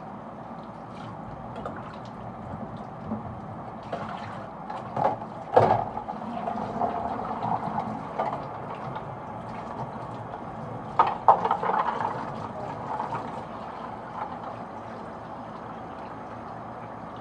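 Water running and splashing as plastic humidifier parts are rinsed and handled, with two louder spells of splashing and knocking, about five and eleven seconds in.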